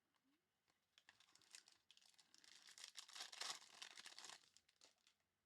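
Faint crinkling and tearing of a foil trading-card pack wrapper being handled and opened, with small clicks. The rustle starts about a second in and dies away shortly before the end.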